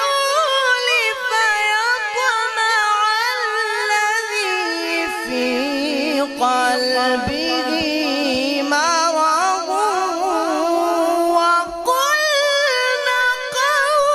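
A male qari reciting the Quran in the melodic tajweed style (tilawat): one long, ornamented line drawn out in a high register. It drops to a lower register about five seconds in and leaps back up near the end.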